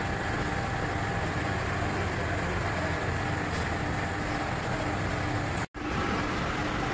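Electric dough kneader running steadily, its arm turning through wheat-flour dough in a stainless steel bowl. The sound breaks off for an instant near the end.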